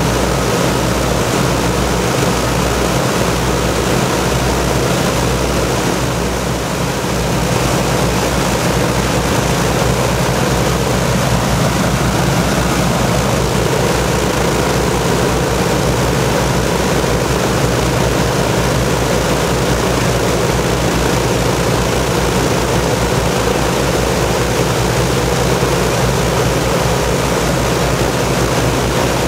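Rolls-Royce Griffon V12 piston engines of an Avro Shackleton Mk 2 running steadily on the ground, their contra-rotating propellers turning, during a static engine run.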